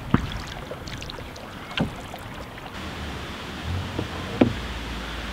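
Open canoe being paddled: water from the paddle strokes with a few light, sharp knocks and clicks, likely the paddle against the hull.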